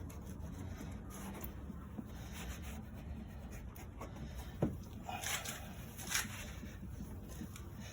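Cloth wiping over a plastic car headlight lens, faint rubbing strokes with a couple of louder swipes around five and six seconds in, over a low steady hum.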